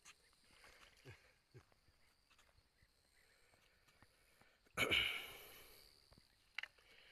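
Quiet shoreline with faint clicks, then a hooked fish splashes once at the surface close to the bank about five seconds in, the noise fading over a second or so.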